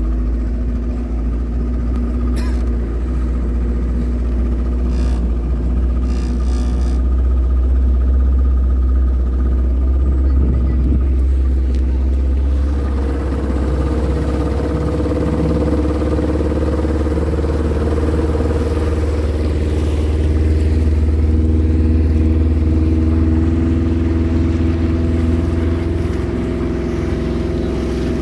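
Yamaha Enduro 40 two-stroke outboard motor running a speedboat at speed, a steady loud drone whose note steps up about halfway through, with the hiss of the wake.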